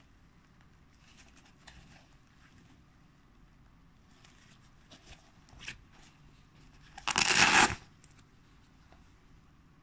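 Nylon Cordura hydration pouch handled and turned over, with faint fabric rustling, then a loud rip lasting under a second about seven seconds in as a fastening on the pouch is pulled open.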